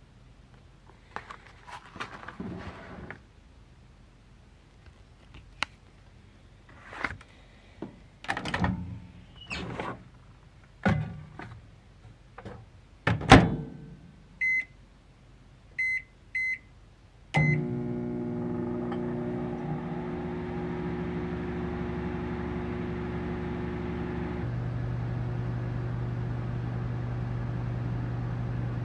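Knocks and handling noises as the noodle tray goes into the microwave, the loudest a single sharp thud of the door shutting. Four short keypad beeps follow, then the microwave oven starts cooking with a steady hum; partway through, the hum changes to a stronger, lower drone.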